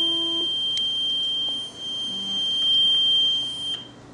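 A loud, steady, high-pitched electronic alarm tone that sounds continuously and cuts off suddenly near the end, with a short lower beep at the start.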